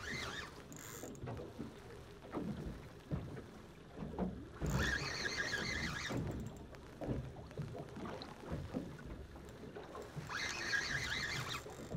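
Spinning reel (an Aquantic Acute Jig 6000) whirring in two short bursts, about five seconds in and again near the end, as a hooked fish is played. Low water and boat noise runs beneath.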